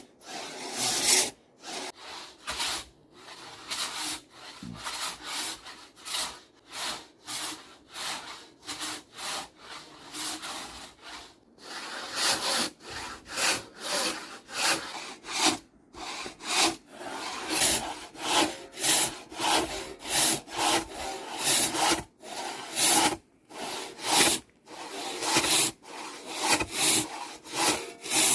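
Traditional Nepalese hand saw cutting through timber, stroke after stroke in a steady rasping rhythm of about one stroke a second, becoming steadier and louder about halfway through.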